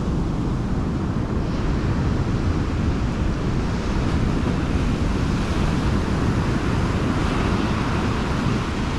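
Wind buffeting the microphone: a loud, steady rush, heaviest in the low end.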